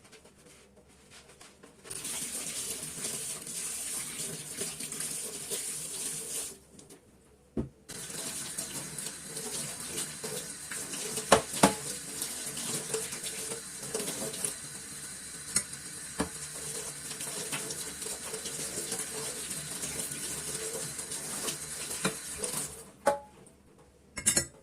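Kitchen tap running into the sink while dishes and cutlery clink and clatter, with a few sharp knocks. The water stops briefly about six seconds in, then runs again until shortly before the end.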